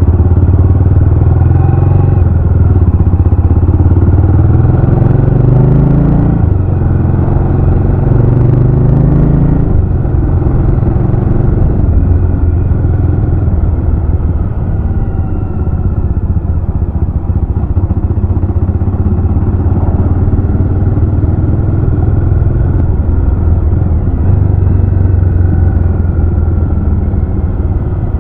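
Jawa RetroTrail 650's 650 cc single-cylinder engine on the move, loud and close. Its pitch climbs twice in the first ten seconds as it accelerates, then settles lower and steadier, and rises again a few seconds before the end.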